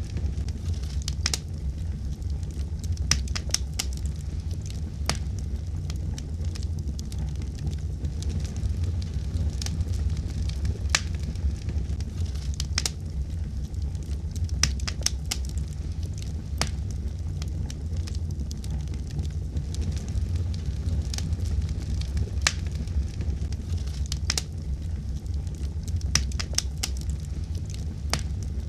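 Fire in a fireplace crackling, with sharp pops at irregular moments over a steady low rumble of the flames.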